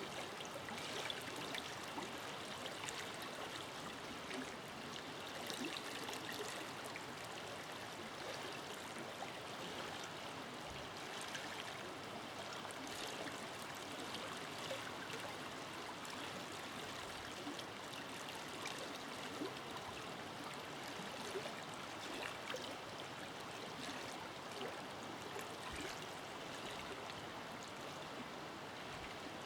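River flowing steadily in a forest: an even rush of water with small splashes and gurgles.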